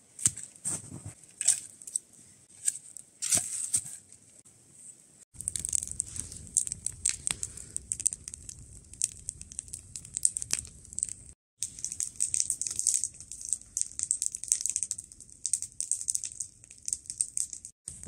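Wood campfire crackling and popping: a few sharp snaps in the first seconds, then dense, continuous crackling over a low rumble.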